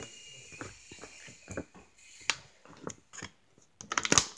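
Plastic paint palette being handled, giving scattered clicks and crinkles, with a quick run of crackling clicks near the end.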